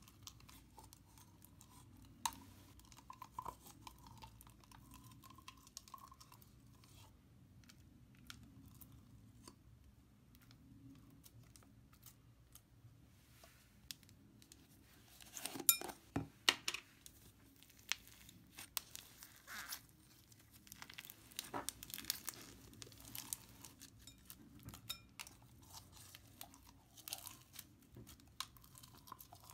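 Thick, textured slime being worked out of a plastic tub into a glass bowl and pressed with the fingers: faint, scattered crackling and small pops. These come sparsely at first, then in a dense run about halfway through and often again over the last third.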